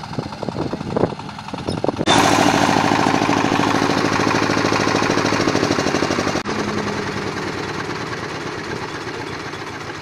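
Agricultural machinery running with a fast mechanical clatter. Irregular knocks for the first couple of seconds, then an abrupt change to a louder, rapid, even rattle that carries on and eases off slightly toward the end.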